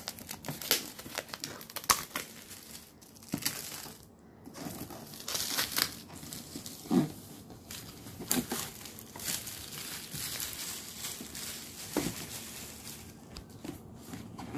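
Clear plastic shrink-wrap crinkling and crackling in irregular bursts as it is torn and pulled off a cardboard game box by hand, with a few louder crackles among them.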